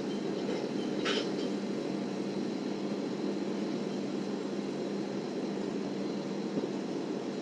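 A steady low engine drone with a constant hum throughout, and one short clatter about a second in.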